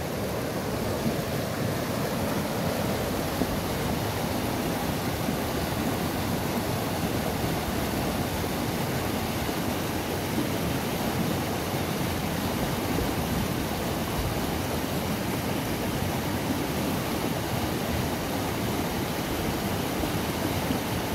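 A small mountain river rushing through boulders in a white-water chute, heard close up as a steady, unbroken rush of water.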